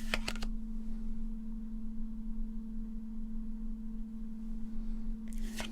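A steady low electrical-sounding hum held at one pitch. Brief crisp rustles of trading cards being handled come just after the start and again near the end.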